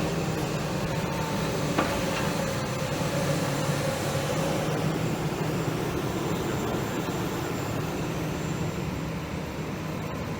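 Steady vehicle running noise, engine hum and road noise, easing off slightly near the end, with one sharp knock about two seconds in.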